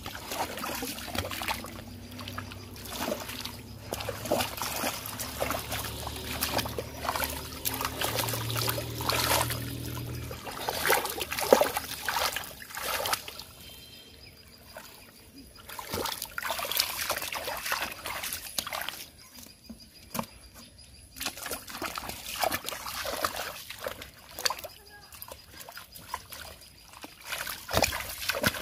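Shallow muddy water splashing and sloshing in irregular bursts as a person wades through it and gropes with his hands in the mud, hand-fishing for catfish. A low steady hum sounds underneath for about the first third.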